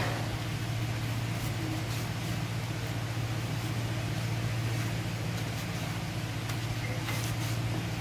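A steady low hum, with faint brief rustles of cloth being handled and turned.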